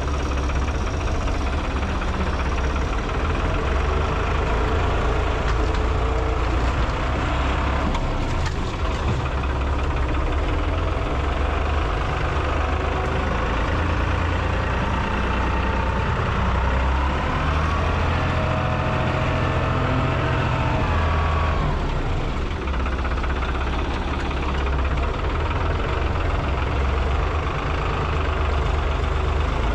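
An engine running steadily and loudly, with a brief rise and fall in pitch a little past the middle.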